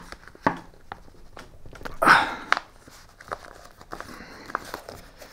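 TPU-coated packraft fabric crinkling and rustling as it is bunched in the hands and a screwdriver is pressed hard into it, with scattered small clicks and one louder rustle about two seconds in.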